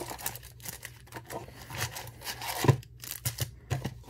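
Trading card booster packs being handled on a desk: irregular crinkling and rustling of the pack wrappers with small clicks, and a soft thump near the middle as something is set down.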